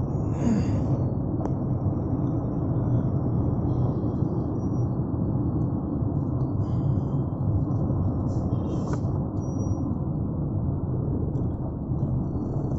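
Steady low road and engine rumble inside a car's cabin as it drives slowly in city traffic, with two light clicks, about a second and a half in and again near nine seconds.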